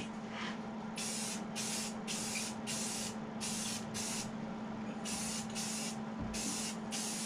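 Aerosol spray-paint can hissing in a string of short bursts, about two a second, starting about a second in with a brief pause midway.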